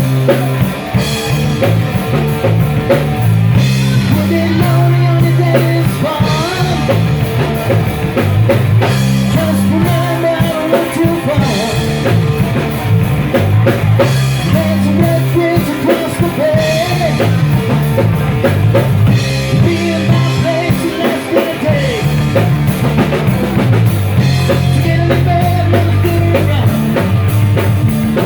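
Rock music: a drum kit and bass keep a steady beat under a wavering lead line.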